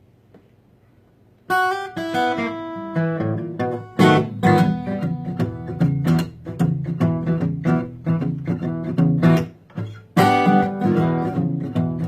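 Acoustic guitar playing the introduction of a country-style song, strummed and picked with a low bass line, starting about a second and a half in after a brief near-quiet pause.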